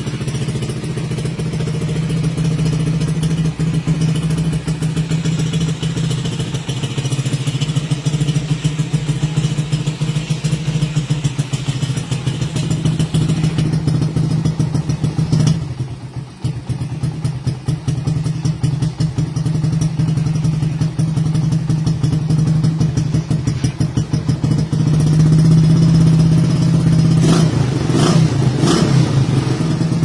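Neptune 125 underbone motorcycle's engine running through a chrome aftermarket exhaust, holding a steady, fast idle. The sound drops briefly about halfway through, then comes back louder for the last few seconds, with a few sharp cracks near the end.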